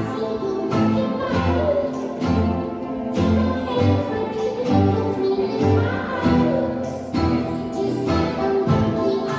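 Ukuleles and acoustic guitars strumming chords together, with children's voices singing along.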